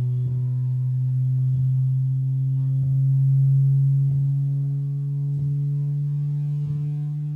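Bass test tone played through the boAt Aavante Bar Stark soundbar and its wireless subwoofer: a loud, steady low hum that slowly rises in pitch. A short tick repeats about every second and a quarter.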